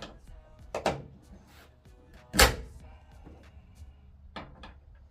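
Background music with a few sharp knocks and clunks of metal tool and bracket work. The loudest knock comes about two and a half seconds in, with smaller ones about a second in and near the end.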